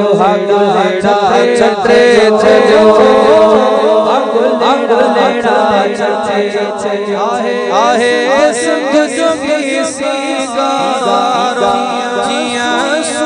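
Sindhi devotional molood sung in a chanting style by several voices, with melodic lines winding over a steady held drone.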